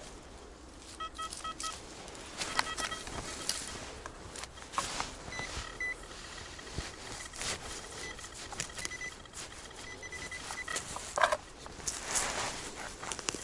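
XP Deus metal detector giving short beeps in brief runs at a few different pitches as it signals metal targets under the coil. Scattered crunching and rustling on the ground runs underneath.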